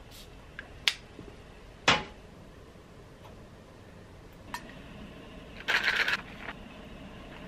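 Small objects set down with a few sharp clicks, then a short rattle as a pack of chewing gum is dropped into a crocheted bag.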